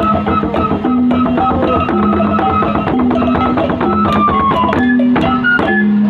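Gordang sambilan, the Mandailing set of nine long drums, beaten with sticks in a fast, dense interlocking rhythm, with held pitched melody notes changing over the drumming.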